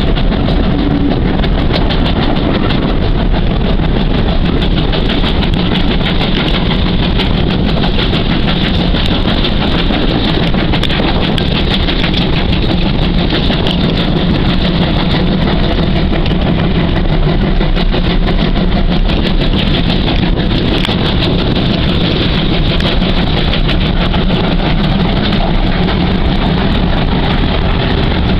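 GWR Hall-class 4-6-0 steam locomotive 4936 Kinlet Hall hauling its train, heard from a carriage window behind it. The running noise of the engine and wheels on the rails is loud and steady, without a break.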